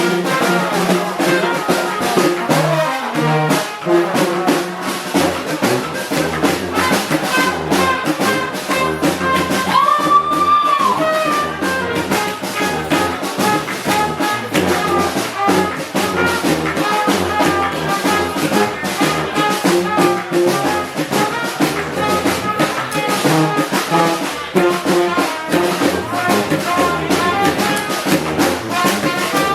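Brass band playing a Balkan čoček, trumpets and trombones over a steady beat. About ten seconds in, a high note is held for about a second.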